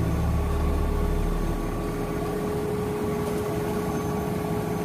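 Kobelco 250-ton crawler crane's diesel engine running steadily while it holds and swings a suspended 21-ton steel side form. A deep rumble eases a little about a second in, and a steady whine sets in just after the start.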